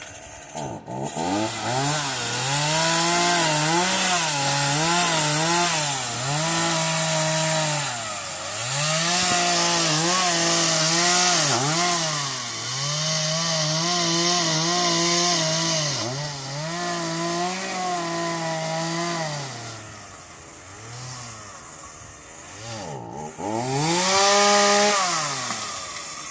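Chainsaw running hard, its pitch dipping and climbing back again and again as it works through wood. It settles lower and quieter near the end, then revs up once more.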